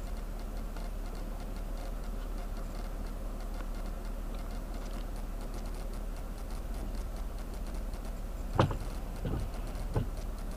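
Steady low rumble inside a stopped car, with faint rapid ticking, and three short thumps near the end, the first the loudest.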